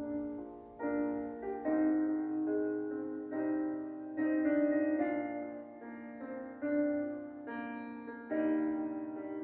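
Piano or keyboard playing a slow, gentle melody with chords, each note struck and left to ring: the instrumental interlude between verses of a hymn.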